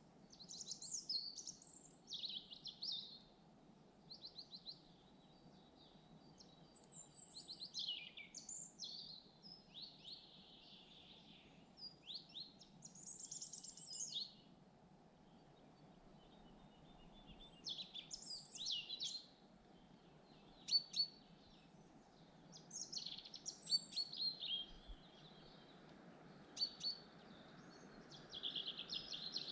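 Forest songbirds singing: a continuous run of short, high chirping and trilled phrases, a few seconds apart, over a faint steady background rush.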